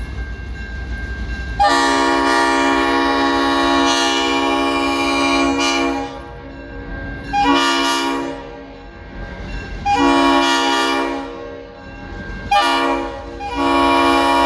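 Leslie RS-5T five-chime locomotive air horn sounding a series of blasts: one long blast of about four seconds, then four shorter ones, quilled so that the chord swells and fades between them. A low engine rumble sits under it before the first blast.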